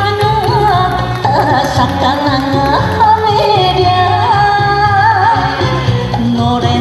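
Music: a passage of a Japanese enka-style song with no lyrics, a wavering lead melody over a steady repeating bass beat.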